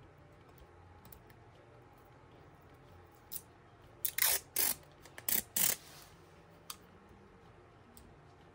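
Washi tape being pulled off its roll and torn by hand: about five short ripping sounds in quick succession between four and six seconds in, after a quieter stretch of handling.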